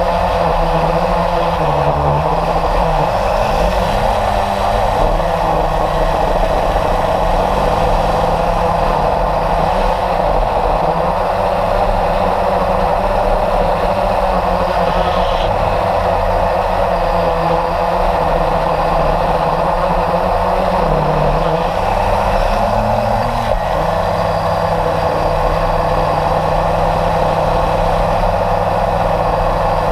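A radio-controlled model airplane's motor and propeller running steadily, heard from a camera mounted on the plane in flight. The pitch sags briefly and recovers twice, about three seconds in and again near twenty-two seconds.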